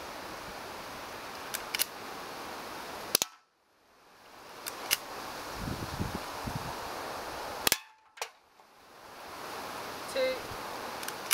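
Toy pistols being fired one shot at a time, giving sharp snaps at irregular intervals, about seven in all. The loudest come about three seconds in and again near eight seconds.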